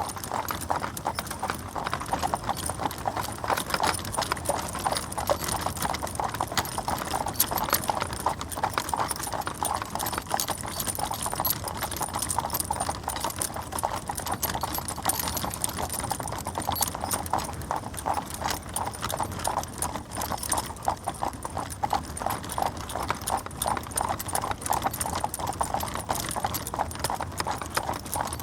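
Hooves of a four-horse team clip-clopping at a steady pace, drawing a stagecoach, in a dense continuous patter of hoofbeats.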